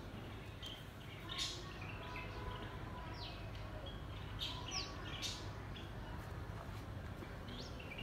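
Bulbuls, a fledgling and its parents, calling back and forth: short, scattered high chirps and quick downward notes over a faint, steady low background rumble.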